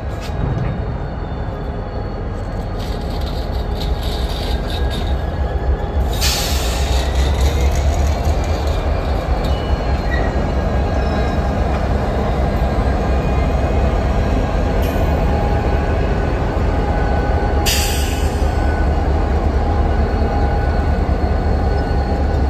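Union Pacific GP60 and GP40-2 diesel locomotives passing close at low speed, their EMD turbocharged V16 two-stroke engines running with a steady low rumble that grows slowly louder. Thin squealing from the wheels runs through it, with two brief hisses.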